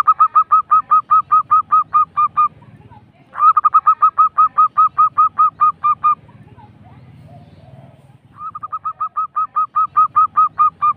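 Zebra dove (perkutut) giving its rolling call: three bursts of rapid, evenly spaced cooing notes at about six a second, each burst lasting two to three seconds.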